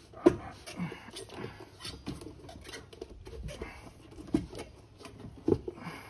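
Tire bead being pushed by hand over the rim of a scooter's cast front wheel: scattered knocks and short squeaks of rubber on metal, the sharpest knocks about a quarter second in and near the end.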